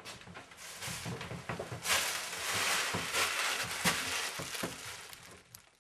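Rustling and a few light knocks of a large printed board being handled and set down. The rustling swells about two seconds in and fades near the end.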